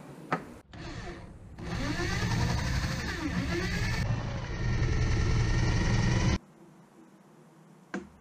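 Corded electric drill in a drill guide boring through a wooden masthead for a stainless steel bolt, after a couple of clicks. The motor pitch sags and recovers as the bit loads up, then the drill stops suddenly about six seconds in.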